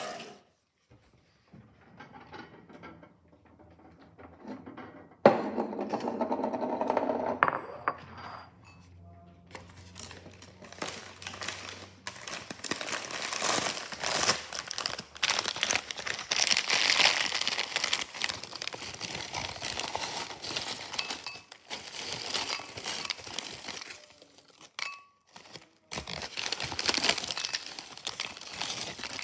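Foil snack bag crinkling and rustling as it is handled and opened, with crackers rattling out of it into a ceramic bowl near the end.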